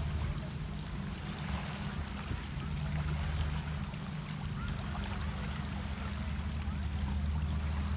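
Small waves lapping and trickling over a pebble shore, with a steady low rumble underneath.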